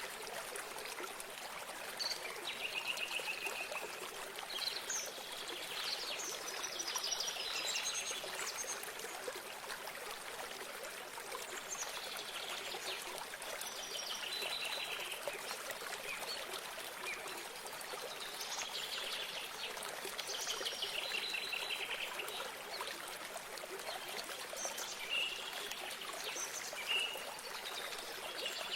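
Water trickling and running steadily, with songbirds singing short trilled and chirping phrases every few seconds over it.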